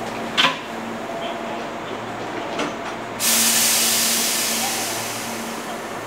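Hankyu 8300 series electric train standing at the platform with a steady low hum, a short sharp sound about half a second in, then a sudden loud burst of compressed-air hiss about three seconds in that fades away slowly, typical of the air system as the train gets ready to depart.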